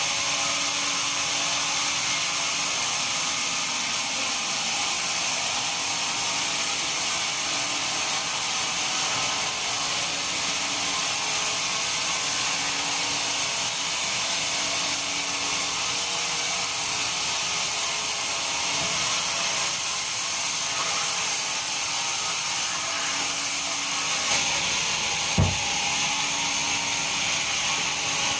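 Sawmill bandsaw running through pine, a steady high-pitched noise, with a single short thud near the end.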